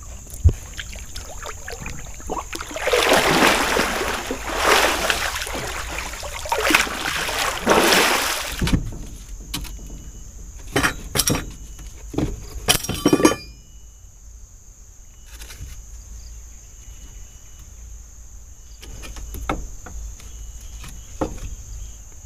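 River water splashing and sloshing in several loud bursts during the first half, as fish are cleaned by hand in the water, followed by a few sharp clicks and knocks. A steady high-pitched insect drone sounds throughout.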